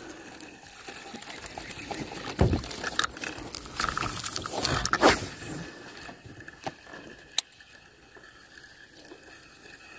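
Light rustling and scattered knocks and clicks from fishing tackle being handled aboard a jon boat, with a louder patch of handling noise about four to five seconds in and one sharp click near the end.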